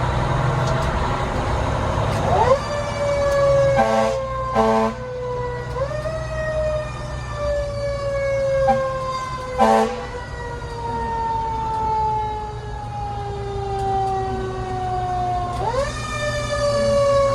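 Fire truck siren wound up three times, each time rising quickly in pitch and then slowly sliding down, as a mechanical siren coasts. Two short horn blasts come about four seconds in and another near the ten-second mark, over the low rumble of the truck's engine.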